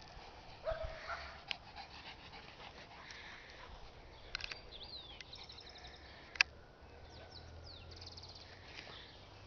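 A dog gives a short high cry about a second in, with a few faint dog sounds after it. Thin bird chirps come in the background, and a sharp click a little after six seconds is the loudest moment.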